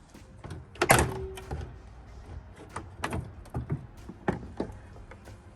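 Plastic knocks and clicks as a pickup truck's headlight assembly is worked loose and pulled out of its mounting, with one loud thunk about a second in.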